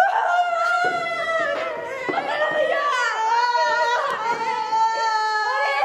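Stage actors' voices, high-pitched and drawn out in long wailing tones, with a few low thuds.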